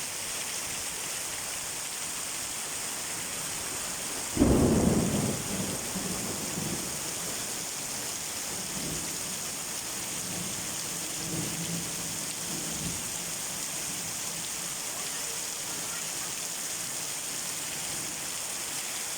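Heavy downpour with a steady hiss of rain, and a sudden loud thunderclap about four seconds in that dies away into low rolling rumbles over the next several seconds.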